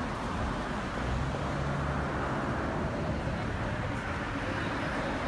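Street traffic passing: a steady rumble of cars, with one vehicle's engine hum strongest between about one and two and a half seconds in.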